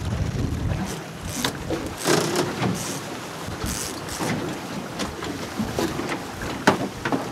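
Wind buffeting the microphone over the wash of choppy sea around a small open boat, rising and falling in gusts; a sharp knock near the end.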